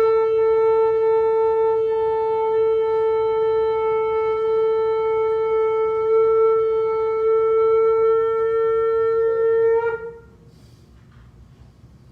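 Shofar sounded in one long held blast, a single steady note with a bright edge of many overtones, lasting about ten seconds and wavering briefly as it breaks off.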